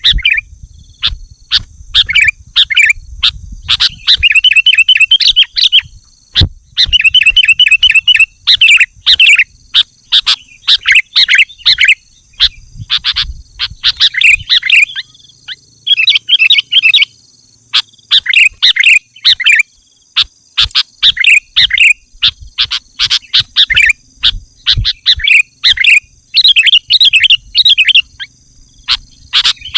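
Sooty-headed bulbul (kutilang) singing loudly and continuously, repeated phrases of quick chattering notes a second or two long with short breaks between, the lively non-stop song that keepers call gacor. Sharp clicks are scattered through, over a faint steady high whine.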